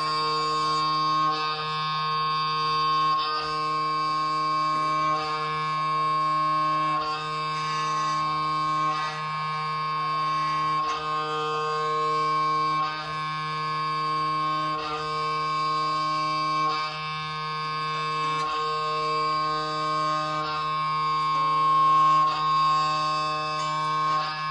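Live minimalist drone music: a dense, unchanging chord of many sustained tones held together, with slight breaks and swells every second or two.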